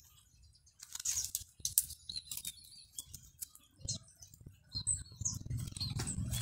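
Scattered light clicks and rustles from hands handling the fronds of a young coconut bonsai, with a few short bird chirps in the second half.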